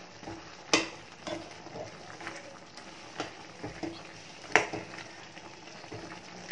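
Chicken in ginger-garlic paste being stirred in a kadai, frying with a steady sizzle. The stirring utensil scrapes and knocks against the pan every second or so, the loudest stroke about two-thirds in.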